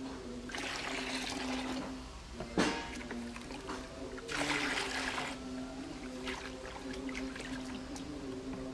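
Water poured from a red plastic bowl into a plastic basin three times: a pour of over a second, a short splash, then another pour of about a second. Steady background music plays underneath.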